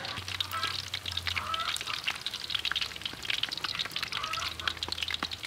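Battered salmon fins deep-frying in a wok of hot oil: a continuous sizzle with fine crackling from the bubbling oil.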